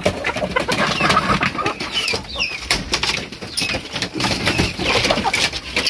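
Backyard chickens calling, short high falling peeps among low clucks, with frequent rustling and knocks of movement close by.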